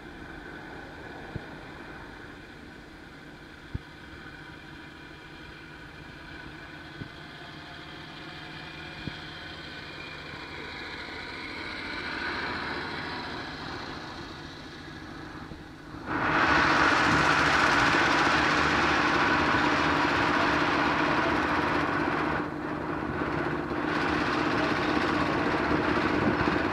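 Engines of small homemade farm tractors running steadily on the road. About two-thirds of the way through, the sound suddenly grows much louder and rougher, and stays that way.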